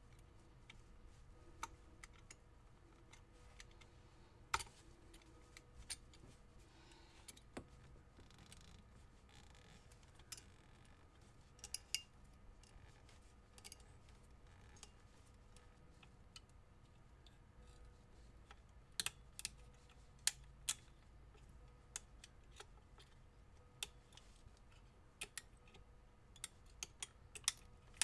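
Razor knife blade chipping and scraping cracked epoxy coating off a wooden pool cue butt: irregular sharp clicks and small snaps, coming more often in the second half.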